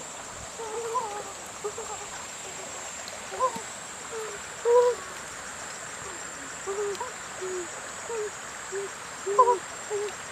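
Short, low hooting animal calls, about fifteen of them at uneven intervals, some dipping slightly in pitch, over a steady thin high-pitched whine.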